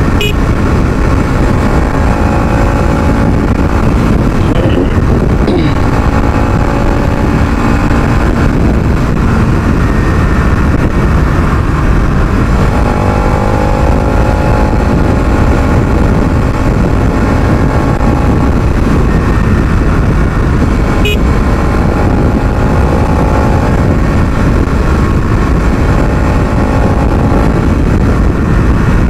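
Bajaj Pulsar NS200's single-cylinder engine under way at speed, its pitch rising and falling again and again as it is revved through the gears, with wind noise rushing over the microphone.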